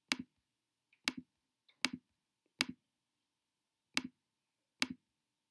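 Six sharp clicks of a computer mouse button, spaced unevenly about a second apart, each a quick press and release.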